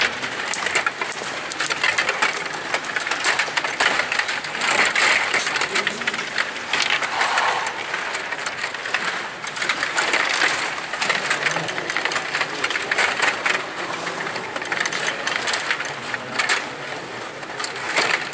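A Stiga table hockey game in play: its plastic rods and players rattling and clacking in rapid, irregular clicks.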